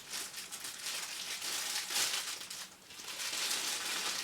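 Packaging rustling and crinkling in an irregular run of small crackles as it is handled, pulled open to take out a wand.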